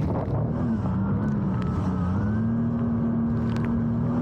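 Jet ski engine running steadily. Its pitch dips briefly about two seconds in, then holds.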